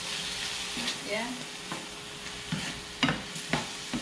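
Pork and red bell pepper sizzling in a frying pan as a plastic spatula stirs and scrapes through them, with three sharper scrapes about half a second apart in the second half.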